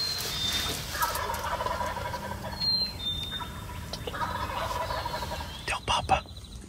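Wild turkey gobbler gobbling, two long rattling gobbles, about a second in and again about four seconds in, with a few thin high bird whistles.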